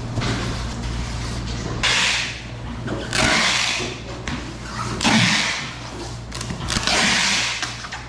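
Clear packing tape pulled off its roll in four long rips as a polystyrene foam cooler is taped shut, over a steady low hum.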